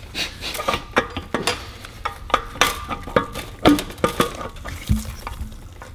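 Irregular light metal clicks and scrapes as a Predator 212 engine's crankshaft is worked by hand out of the crankcase past the connecting rod, with one dull knock about five seconds in.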